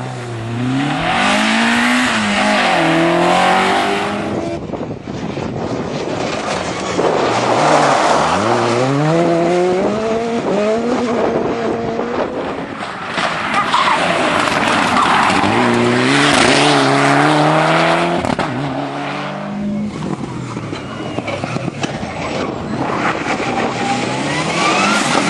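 Rally cars driven flat out one after another, engines revving hard and climbing in pitch through gear changes, in about four separate passes that each rise and fall away.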